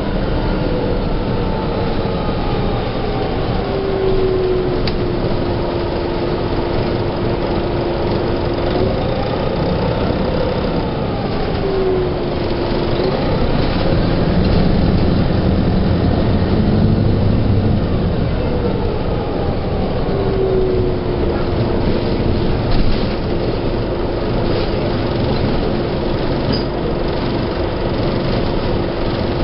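1997 NovaBUS RTS transit bus with a Detroit Diesel Series 50 engine and Allison V731 automatic transmission running under way. A steady low rumble sits under a drivetrain whine that glides down and up in pitch a few times as the bus changes speed, then holds steady.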